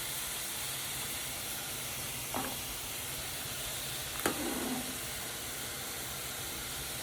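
Steak sizzling steadily in a hot pan on the stove, with two brief knocks about two and a half and four seconds in.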